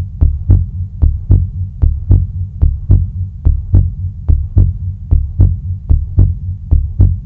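Heartbeat sound effect: a steady double thump, lub-dub, repeating about 75 times a minute over a low drone.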